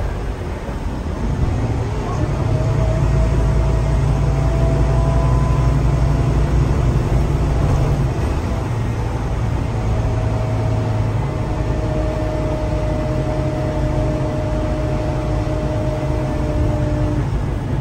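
Scania K360UA articulated bus heard from inside the passenger cabin while driving: a steady low engine drone with a thin whine that rises slowly in pitch as the bus gathers speed. The engine note eases and shifts about eight seconds in and again a few seconds later.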